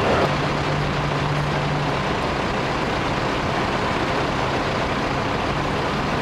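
A vehicle engine running, a steady low hum that is strongest in the first two seconds, over steady street noise.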